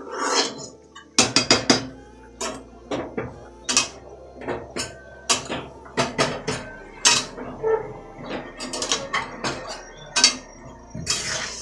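A metal spoon and ladle clinking and scraping against a steel karahi and small steel bowls, with a quick flurry of loud clinks about a second in and irregular single clinks after.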